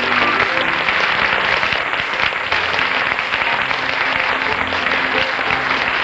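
Studio audience applauding over a dance band playing.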